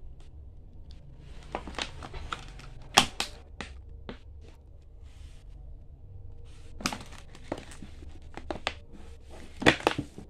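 Plastic wrapping around a multipack of wafer bars crinkling and clicking as fingers press and handle it, with irregular crackles, the sharpest about three seconds in and again near the end.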